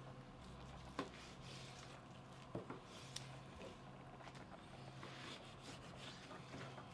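Quiet room tone with a low steady hum, broken by a few faint soft taps of a knife on a plastic cutting board as raw pork shoulder is sliced.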